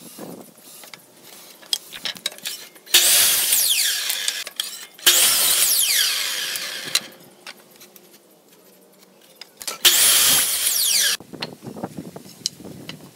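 Power miter saw crosscutting a pine board three times, each cut a loud burst of about two seconds whose whine falls away as the blade spins down. Light knocks of boards being handled come between the cuts.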